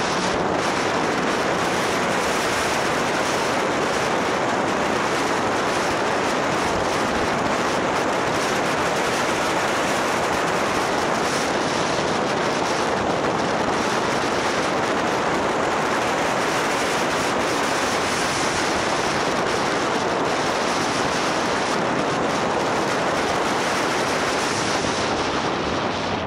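Steady rush of wind over the microphone on a moving motorcycle, with engine and road noise blended into an even roar and no separate engine note standing out.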